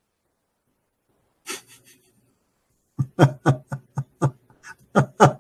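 A man laughing hard in a quick run of short bursts, about four a second, each falling in pitch. The laughter starts about three seconds in, after a short breathy sound.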